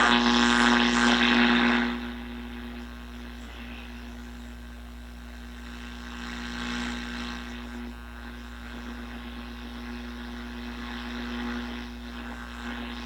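Yaesu FRG-7 communications receiver's audio output between AM broadcast stations: a steady low droning tone over static hiss. The hiss is loud for about the first two seconds, then drops to a fainter, steady level.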